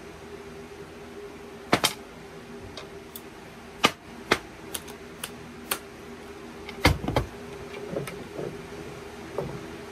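Sharp metallic clicks and clinks of a socket and nuts being set down and handled on a diamond-plate metal workbench, about a dozen, with a heavier thump about seven seconds in, over a steady low hum.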